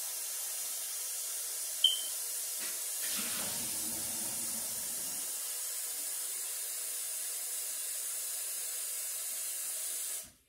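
Tap running hot water in a steady hiss, with one sharp clink about two seconds in; the flow cuts off just before the end.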